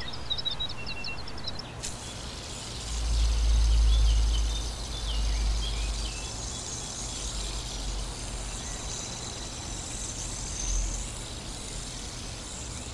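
Outdoor ambience: a steady hiss with a low rumble that swells about three to five seconds in, and a few birds chirping now and then.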